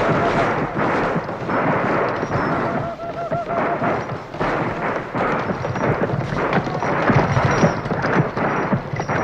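A dense, unbroken clatter of many sharp cracks and bangs over a low rumble, with a warbling tone rising through it briefly about three seconds in.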